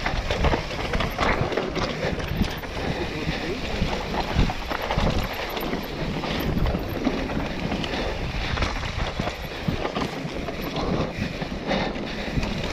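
Mountain bike descending a rough dirt singletrack at speed: steady wind buffeting on the microphone, with tyre noise on the dirt and the bike rattling and knocking over bumps.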